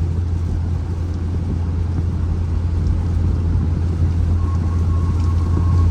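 Steady low drone of road and engine noise inside the cabin of an Infiniti Q50 driving on a wet road. A faint, thin high tone comes in near the end.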